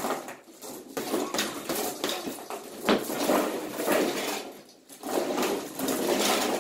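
Several gloved punches landing on a hanging punching bag, the hardest about three seconds in, with metal clinking and rattling after the blows.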